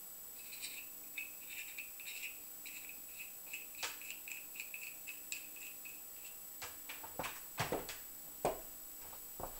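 Light clicks and rattles of paintball marker parts (a RAP4 Gen4's receiver and internals) being handled and fitted together by hand, with several louder knocks in the second half.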